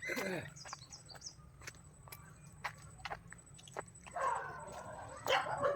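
Animal sounds: a short call falling in pitch at the start, a few brief high chirps like a bird's about a second in, and a longer wavering call from about four seconds in, over scattered light clicks.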